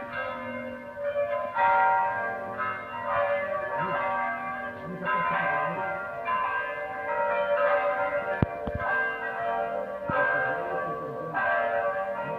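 Telegrafia Urban M electronic church bell playing a recorded bell toll through loudspeakers: several bell tones struck in an uneven peal, each strike ringing on into the next. A single sharp click about two-thirds of the way through.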